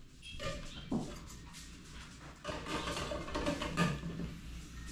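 Soft knocks and scraping of cookware being handled at the stove, busiest in the second half, over a low steady hum.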